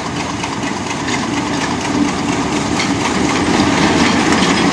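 TU2 narrow-gauge diesel locomotive running under power as it hauls its train past, the engine note growing louder toward the end.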